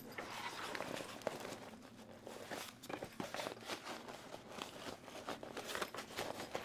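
Rustling and scraping of a stiff padded panel being worked down into a fabric bag's side pocket, in many short irregular scuffs and clicks. The panel is binding a little as it rubs over Velcro inside the pocket.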